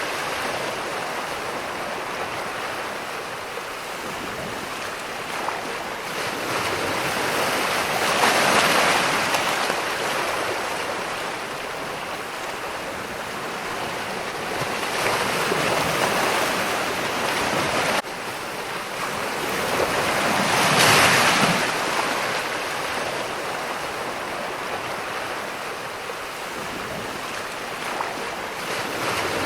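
Ocean surf: waves breaking and washing up the shore in slow, rolling surges, each swelling and fading over several seconds.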